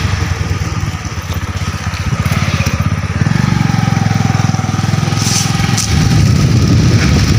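Motorcycle engine running under way, heard from on the bike, with a rapid low pulsing. It grows louder about three seconds in and again near six seconds.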